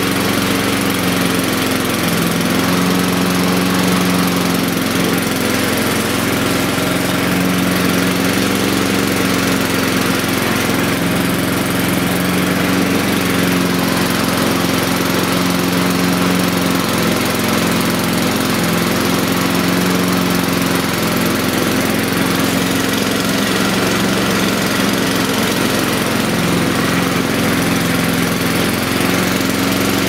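Honda Izy petrol lawnmower's single-cylinder four-stroke engine running steadily at one even speed; it runs, though not perfectly.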